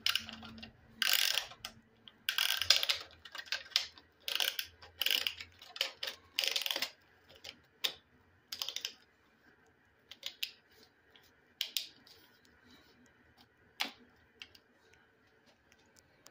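Piston ring compressor's ratchet clicking as its band is tightened around a piston to squeeze the rings before the piston goes into the bore. There is a run of quick ratcheting strokes for the first several seconds, then a few single clicks spaced a second or more apart.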